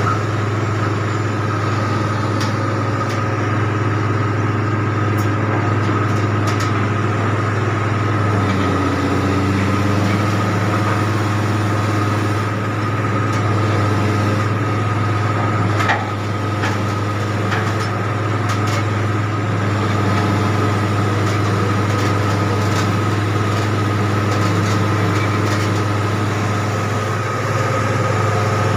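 Casagrande rotary bored-pile rig's diesel engine running steadily, with a steady high whine over it. A single short knock comes a little past the middle.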